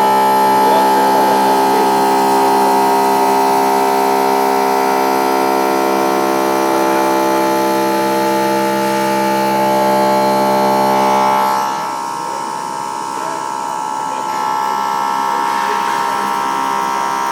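Haas VF-3 CNC vertical mill running a cycle: a steady machine whine made of several tones at once. About twelve seconds in, the lower tones drop out and the sound gets quieter, then it swells slightly a couple of seconds later.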